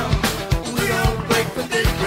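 Background music: an upbeat song with a steady drum beat.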